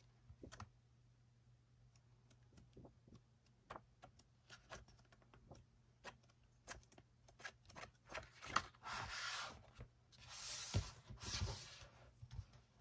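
Photobook pages turned by hand: faint paper flips and light taps. Louder paper and cardboard rustling about eight seconds in as the album and its packaging are handled.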